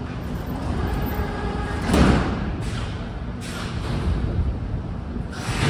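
Sliding doors of an 81-717/714.6 metro train shutting with a single loud bang about two seconds in, over the steady rumble of the train standing at the platform. A hiss sets in near the end.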